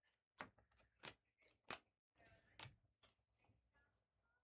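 Faint handling of trading-card packs and cards: soft wrapper crinkles and cards sliding, with about four short sharp clicks spread over a few seconds.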